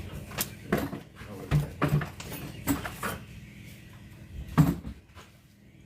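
A handful of irregular knocks and clicks as sound-system gear and patch cables are handled and plugged in, the loudest about four and a half seconds in.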